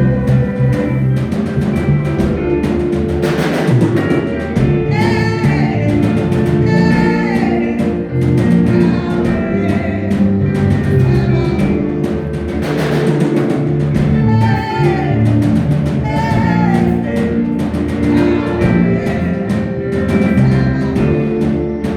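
Up-tempo gospel praise music with singing over a steady drum beat.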